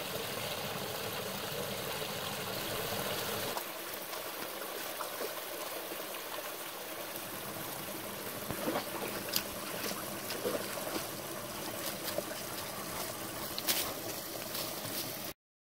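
Small woodland brook trickling steadily over rocks in a little cascade. From about halfway in there are a few short sharp splashes as a dog wades in and laps the water. The sound cuts off suddenly just before the end.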